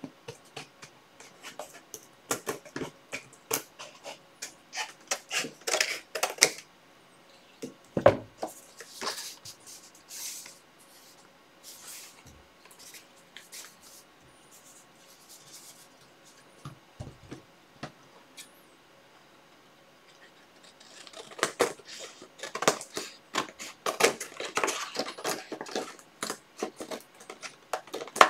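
Scissors snipping through paper in quick repeated cuts, with a single knock about eight seconds in. Quieter paper and card handling follows, then another dense run of quick clicks and crinkles near the end.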